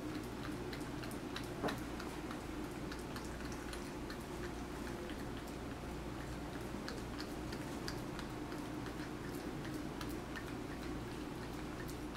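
Cat nibbling and licking a peeled banana: many small wet mouth clicks, one sharper click about a second and a half in, over a steady low room hum.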